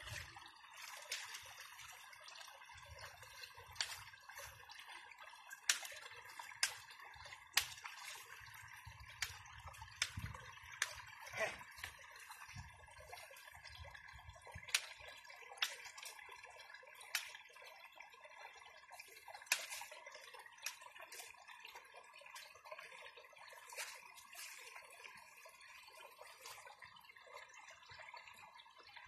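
Goats biting and tearing off grass: faint, sharp snaps at irregular intervals, about one a second, over a faint steady background tone.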